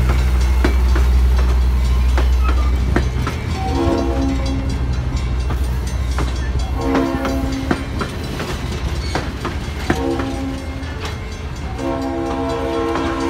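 Passenger coaches rolling slowly past, wheels clicking over the rail joints, while a locomotive horn ahead sounds four blasts, long, long, short, long: the standard warning for a road grade crossing. A low engine drone drops away about three seconds in.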